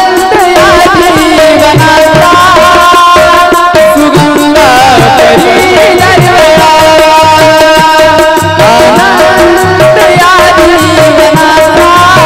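Marathi devotional song: a wavering sung or played melody over steady held notes, with tabla keeping a regular beat.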